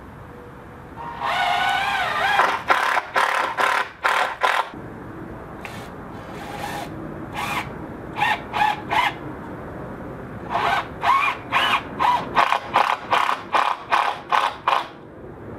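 Power drill driving a screw into the pergola's wooden beam: a steady whir for about a second, then a string of short trigger bursts, a pause, and a longer run of quick bursts at about two a second as the screw is seated.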